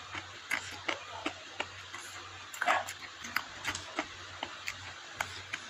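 Close-up eating sounds: wet chewing and lip smacks as a run of short sharp clicks, with fingers squishing rice and stir-fried water spinach. About halfway through there is one short, louder cry that falls in pitch.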